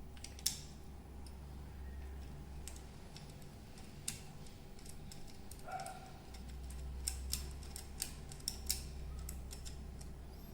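Scattered light clicks and taps from handling a wall socket's wiring and terminal screws with a screwdriver, a few in quick succession, over a steady low hum.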